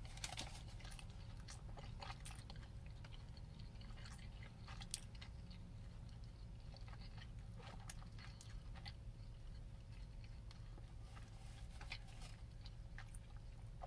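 A person chewing and biting food with faint, irregular small crunches and clicks, over a faint steady low hum.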